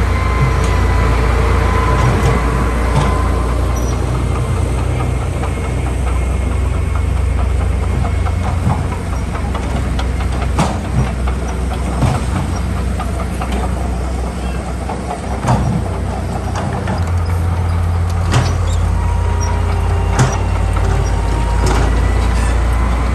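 Heavy diesel earthmoving machinery running steadily under load, with several sharp metallic knocks through the middle.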